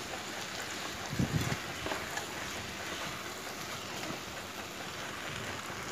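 Kidney beans and vegetable gravy sizzling steadily in a frying pan while a wooden spatula stirs them, with a few soft knocks and scrapes of the spatula between one and two seconds in.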